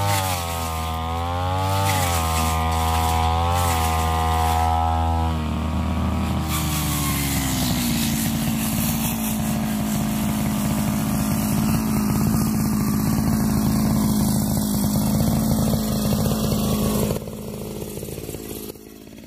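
Backpack petrol brush cutter running at high throttle while cutting tall, thick grass, its pitch rising and falling with the load. About six seconds in the throttle is released and the engine falls to a steady idle, which drops in loudness near the end.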